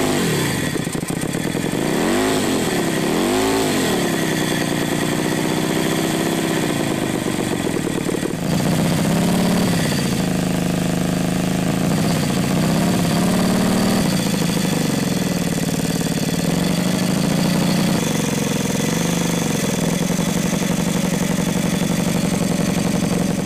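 Home-built two-cylinder engine, put together from a used air compressor and a Honda cylinder head, running and being revved. The pitch rises and falls twice in the first few seconds, then settles to a steady run. The sound changes abruptly about eight seconds in, and smaller revs follow.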